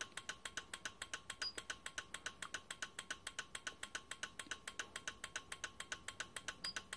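Rapid, even clicking, about seven clicks a second, from the bench switching rig pulsing a test bulb on and off, with a faint steady high tone beneath.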